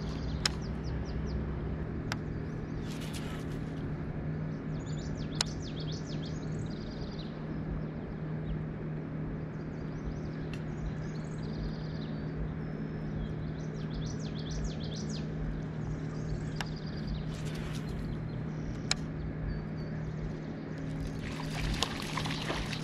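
Small birds chirping on and off over a steady low hum, with a few sharp single clicks. Near the end comes a splash at the water's surface by the bank, where a bass hits a topwater frog lure.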